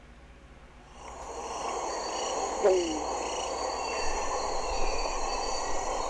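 Olive-backed quail-dove giving one short, low hoot that falls in pitch, about two and a half seconds in. It sounds over a steady forest background of high insect-like tones that comes in about a second in.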